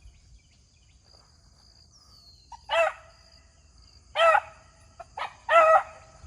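Beagle hound baying on a rabbit track: a few short, arched bays more than a second apart, the dog giving mouth as it works the scent. Crickets keep up a steady high chirring behind.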